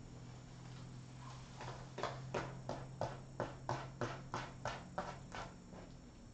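A six-week-old kitten scratching in cat litter to bury his waste, about a dozen quick rhythmic strokes, roughly three a second, that stop a little before the end.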